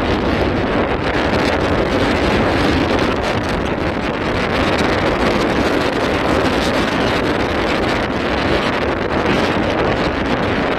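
Strong wind blowing across the microphone, a loud, steady rushing noise.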